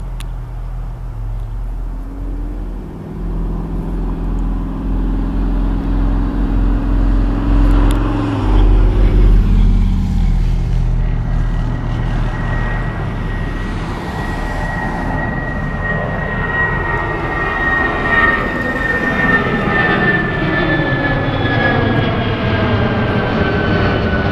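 Boeing 757-200's twin turbofan engines at takeoff thrust during the takeoff roll and climb-out, growing louder as the jet comes overhead. From about halfway a high fan whine slowly falls in pitch.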